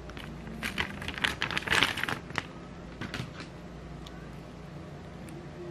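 Clear plastic bag crinkling as a USB cable is pulled out of it, densest in the first two and a half seconds, with a few lighter crackles about three seconds in.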